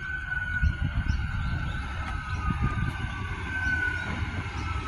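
4000 class electric multiple unit's traction motors whining as it runs into the station, the whine gliding slowly down in pitch and stepping back up once about three and a half seconds in before falling again, over a low rumble.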